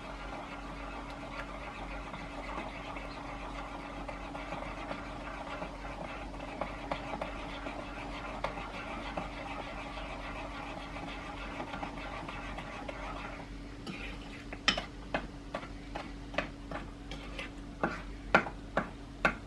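Electric mixer running steadily as it beats wet cookie batter after the egg and vanilla are added, switching off about two-thirds of the way in. Several sharp clinks and knocks follow, utensils or beaters against the mixing bowl.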